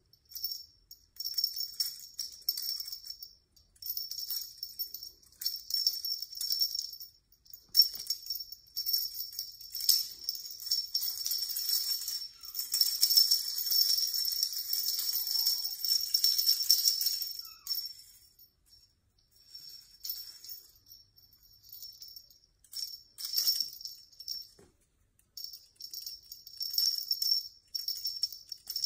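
Small jingle bell on a feather wand cat toy jingling in irregular bursts as the toy is swung about, with a longer run of continuous jingling in the middle and short gaps between shakes.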